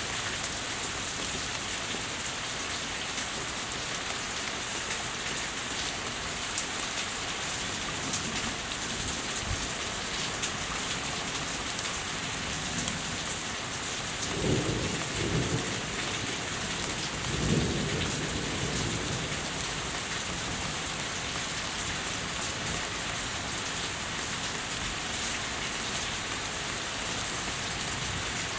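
Steady rain falling on the house, deck and water, with a low roll of thunder about halfway through that comes in two swells, the second the loudest.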